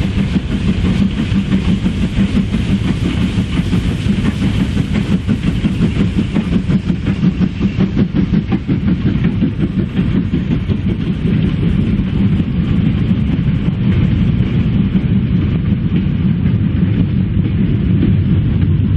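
Steam-hauled goods train of GWR box vans passing, the wagons' wheels clattering rhythmically over the rail joints. The sound grows duller from about a third of the way in as the locomotive draws away and the last vans and brake van go by.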